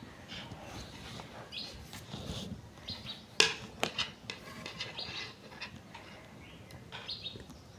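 Knitting needles clicking and wool yarn rustling as stitches are worked by hand, quietly, with two sharper clicks about halfway through.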